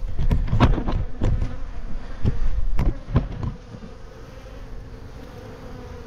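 A calm swarm of African honey bees buzzing with a steady hum. Over the first three seconds or so there is a quick run of knocks and handling noises, then the buzz carries on alone.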